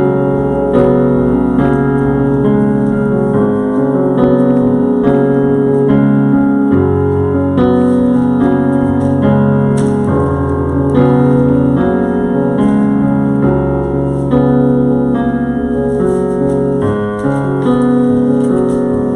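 Slow keyboard music: sustained chords that change every second or two over a low bass note that shifts a few times.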